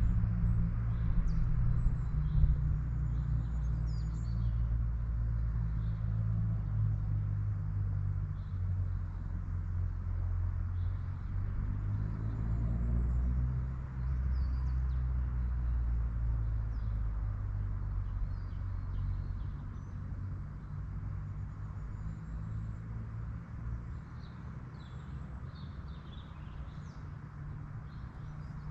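Birds chirping and calling over a steady low rumble, which fades away over the last third.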